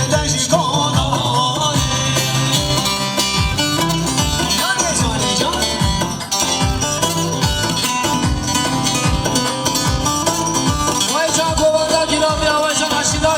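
Loud Kurdish wedding dance music: a steady, driving beat under a wavering melody line.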